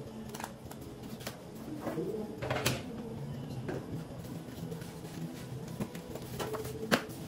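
Plastic-wrapped keyboard and foam packing being handled: scattered rustles and a few sharp knocks, the loudest about two and a half seconds in and another near the end. A faint low cooing runs underneath.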